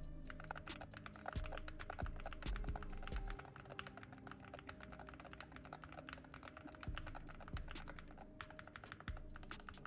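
Rapid typing on the Attack Shark R85 HE, a Hall-effect magnetic-switch keyboard: a fast run of many key clicks a second. Background music plays along with it.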